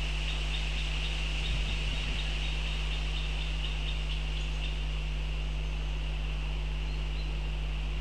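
Steady low electrical hum and hiss from a nest webcam's microphone. Over the first half, a quick run of faint, short, high bird notes, about three a second.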